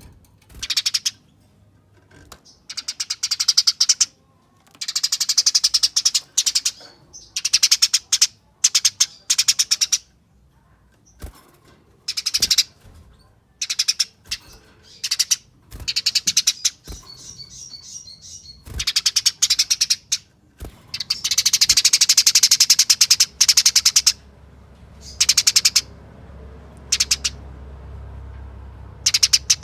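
Eurasian tree sparrow giving its fast, tight chattering calls in repeated bursts of one to two seconds, with one longer run of about three seconds past the middle. This is the agitated fighting chatter of a sparrow squaring up to a rival.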